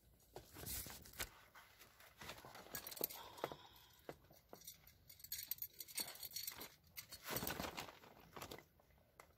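Faint, irregular rustling and crinkling of a plastic tarp being handled, with scattered small clicks.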